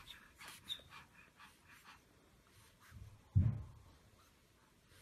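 A pug panting in faint, rhythmic breaths, with one louder short dog sound about three and a half seconds in.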